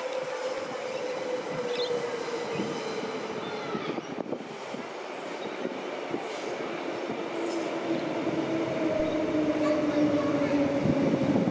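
Queensland Rail narrow-gauge electric multiple-unit train, two units coupled, running into the station and slowing. A steady rolling rumble carries a whine that falls slowly in pitch.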